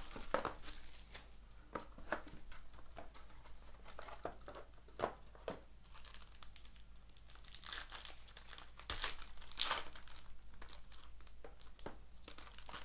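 A sealed Tier One baseball card box being unwrapped and opened by hand: plastic wrap crinkling and tearing, and cardboard and packaging rustling, with scattered clicks and a busier burst of crinkling near the end.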